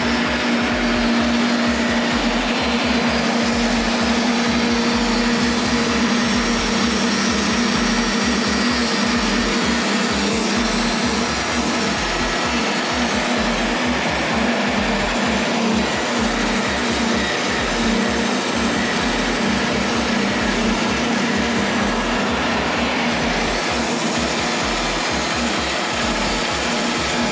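Wood-Mizer LT15 WIDE electric band sawmill running steadily, its blade cutting through a black walnut log: a constant motor hum over an even hiss.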